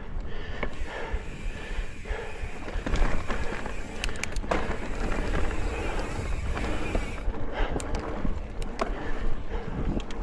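Mountain bike riding over dirt singletrack: steady tyre rumble and wind buffeting, with sharp clicks and rattles from the bike over bumps a few times.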